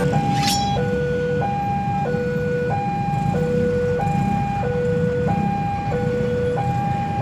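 Level-crossing warning alarm sounding its two-note electronic tone, a higher and a lower note alternating about every 0.6 s, signalling an approaching train. Underneath it is a low rumble of waiting motorcycle and road traffic.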